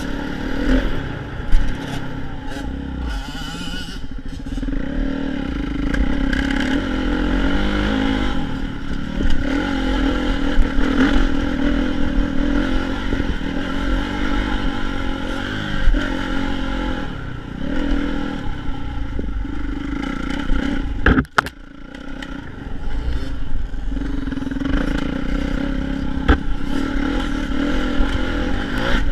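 Dirt bike engine running while being ridden, its pitch rising and falling as the throttle opens and closes, with knocks and rattles along the way. About two-thirds through, the sound briefly drops away with a sharp click, then the engine comes back.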